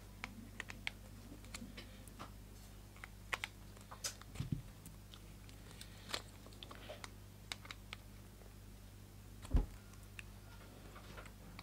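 Irregular light clicks and taps of small plastic and metal parts as needle-nose pliers work contacts out of a contactor's plastic housing. A heavier knock comes about halfway through and another, the loudest, near the end, over a faint steady low hum.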